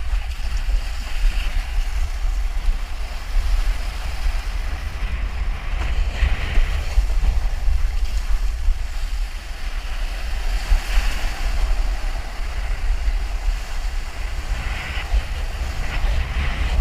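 Strong typhoon wind buffeting the microphone in a constant low rumble, over the wash of surf and choppy water. Brief louder hissing surges come and go every few seconds.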